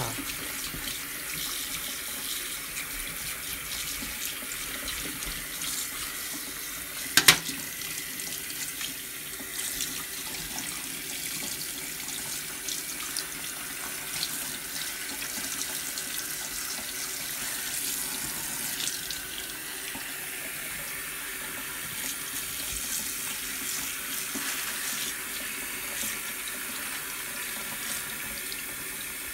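Kitchen tap running into a stainless steel sink, the stream splashing over a filleted morwong carcass as gloved hands rinse it. A single sharp knock about seven seconds in.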